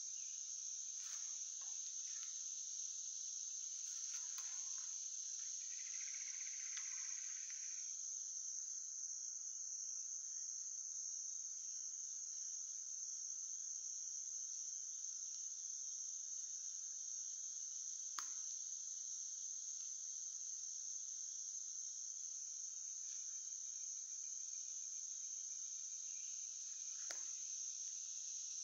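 Steady high-pitched chorus of insects, one even drone with no breaks, and a single faint sharp click about two-thirds of the way through.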